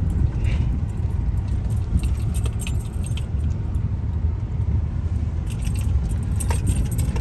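Inside a car's cabin, a steady low rumble of the car crawling over a rough, bumpy road, with scattered light rattles and clinks of loose things in the car jolted by the bumps.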